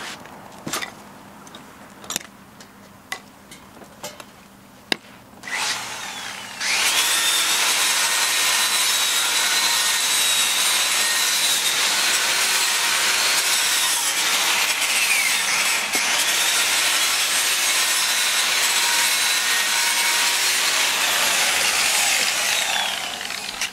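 Angle grinder with a wire brush wheel scrubbing rust off a steel exhaust pipe: a loud, continuous scraping over a steady high motor whine. It starts about seven seconds in, after a few clicks and a short burst, dips briefly in speed midway and stops just before the end.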